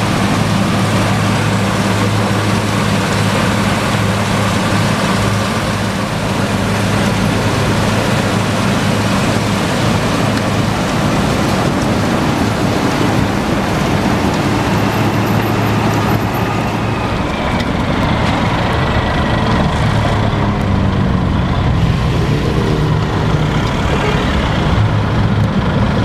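Wirtgen W2000 cold milling machine and heavy diesel engines running steadily under a loud, dense rush of noise as milled asphalt pours off the conveyor into a semitrailer tipper body. About two-thirds of the way through, the engine tones begin to waver and shift.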